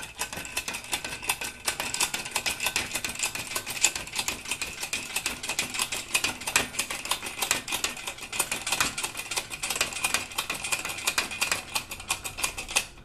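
Hydraulic bottle jack of a bed-mounted shop crane being pumped by hand with a short handle, raising the boom: a fast, continuous run of clicks that stops abruptly near the end.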